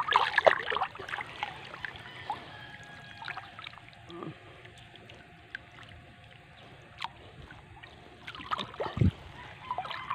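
Fishing net being hauled up out of the river beside a small boat: water splashing and dripping off the mesh, loudest in the first second, with a few more splashes and a dull thump near the end.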